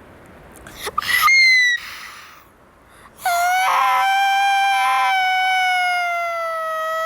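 A person's voice giving a brief high-pitched squeal about a second in, then a long, steady high-pitched shriek starting about three seconds in, held on one note that sinks slightly in pitch.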